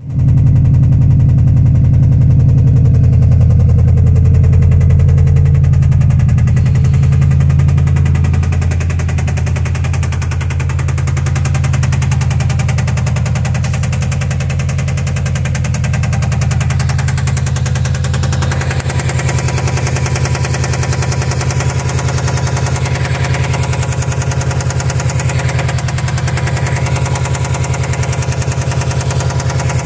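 2005 Subaru Impreza WRX STI's turbocharged 2.5-litre flat-four engine running steadily with a rapid, even knocking: rod knock.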